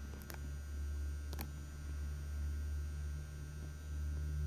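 Steady low hum, with two faint clicks about a quarter second in and about a second and a half in.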